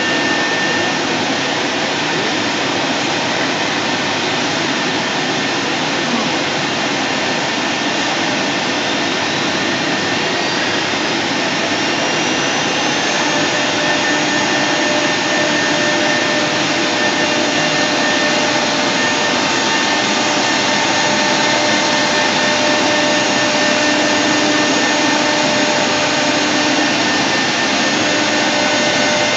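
CNC router spindle routing grooves into MDF: a steady, loud whirring noise with a few faint high tones, one of which rises in pitch between about nine and thirteen seconds in.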